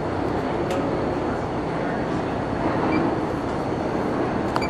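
Steady din of a crowded exhibition hall: many people talking at once over a general low rumble, with a couple of faint clicks.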